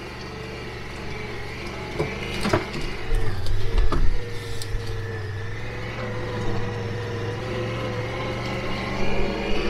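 Side-by-side utility vehicle's engine running steadily as it drives along a trail, getting louder about three seconds in, with a few short knocks between about two and four seconds in.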